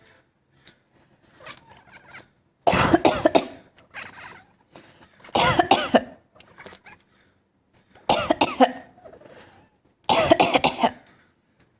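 Siberian cat coughing: four loud bouts of rapid hacking, each about a second long and a couple of seconds apart, with fainter sounds before and between them.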